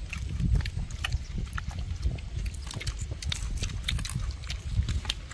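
A person chewing a mouthful of rice and fish close to the microphone, with wet lip-smacking and many quick sharp clicks over a low rumble.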